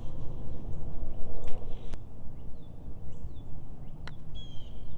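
Wind rumbling on the microphone, with birds chirping several times, the busiest near the end. A single sharp click about four seconds in is a golf club striking the ball on a short approach shot.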